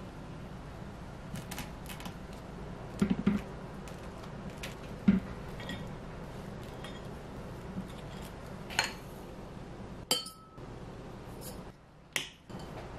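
Light kitchen handling sounds: a scattering of short knocks and clinks as buttered toast is handled on a metal wire rack and a ceramic plate, with the loudest a quick double knock about three seconds in and a sharper one about five seconds in. Near the end comes a clink of a glass being set down.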